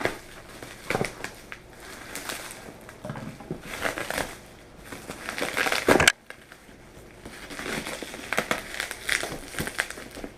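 Shipping packaging being handled and opened: crinkling and crunching in irregular bursts, the loudest just before six seconds in, which cuts off sharply.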